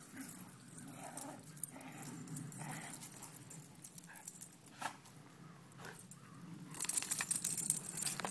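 Whippets playing tug-of-war over a rope toy, with low dog growling and scuffling. Near the end comes a much louder rustling, scraping noise as a dog brushes against the phone.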